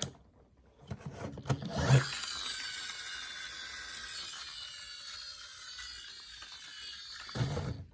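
Plastic toy bulldozer being handled: a few clicks and knocks, then a sustained rough whirring rub for about five seconds that slowly fades, with more handling knocks near the end.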